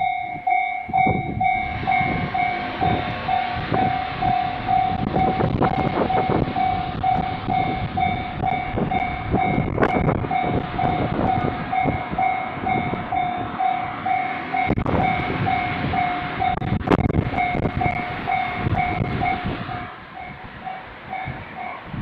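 Japanese level-crossing warning bell ringing, a rapidly repeating electronic ding at one pitch. Over it an Iizaka Line electric train runs through the crossing with its wheels clicking over the rail joints; the train noise stops about two seconds before the end while the bell keeps ringing.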